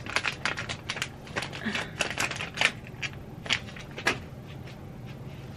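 Irregular crinkling, rustling and sharp clicks of small items and packaging being handled by hand, over a steady low hum.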